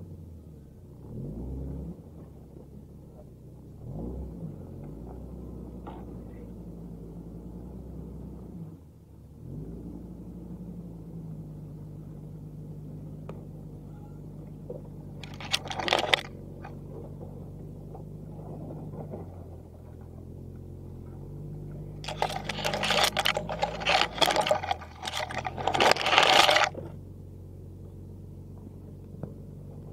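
1990 Jeep Cherokee XJ's engine running, its pitch shifting a few times in the first ten seconds and then holding steady. Two loud bursts of clattering and scraping over it, a short one just past halfway and a longer one of about four seconds later on.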